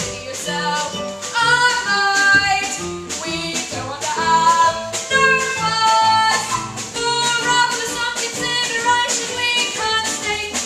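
A song playing: a singing voice over instruments with a steady beat.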